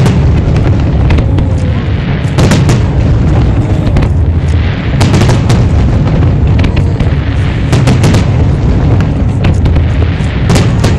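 Fireworks display: a dense, continuous barrage of aerial shells bursting, deep overlapping booms with louder sharp cracks about every two to three seconds.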